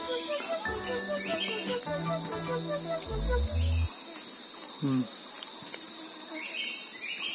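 Insects droning in a steady, high-pitched chorus. A run of short, low repeated notes sounds through the first three seconds.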